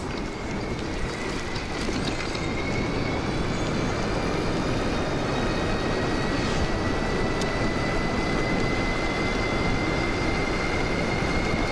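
2000 W e-bike's electric drive motor whining steadily under power, its pitch creeping slowly upward as the bike gains speed, over rushing wind and road noise.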